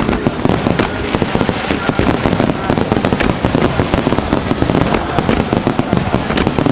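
Fireworks finale barrage: aerial shells bursting in a rapid, unbroken stream of loud bangs, several overlapping each second.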